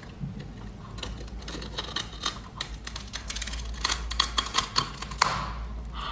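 Spiny sea urchin shell being cracked open: a rapid, irregular series of sharp clicks and crunches, with the loudest crack a little after five seconds in.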